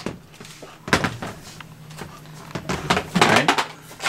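Scattered sharp clicks and knocks of hard plastic being handled: a 3D-printed stock being fitted onto a plastic toy blaster's body.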